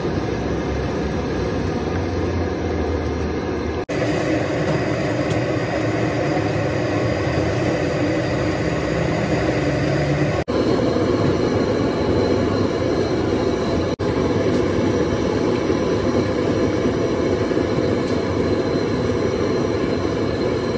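Steady roaring noise of a busy food-stall kitchen, with no speech, changing character abruptly at cuts about 4, 10 and 14 seconds in.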